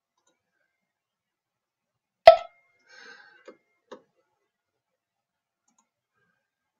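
One sharp click with a short ringing tail about two seconds in, followed by a few faint clicks over the next second or two; otherwise silence.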